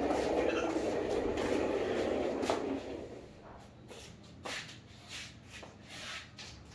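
A toddler's plastic ride-on push car rumbling as its wheels roll over a tiled floor, stopping after about two and a half seconds. A few light knocks and clicks follow.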